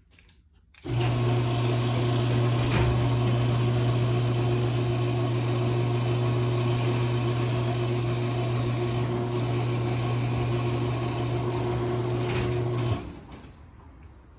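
Electric garage door opener running as it raises a sectional overhead garage door: a steady motor hum that starts about a second in and cuts off about a second before the end.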